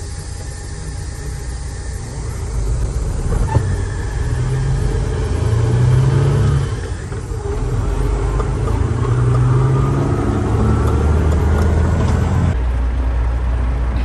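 Truck engine pulling away and accelerating. Its note climbs, drops at a gear change about seven seconds in, then climbs again. The sound changes abruptly near the end.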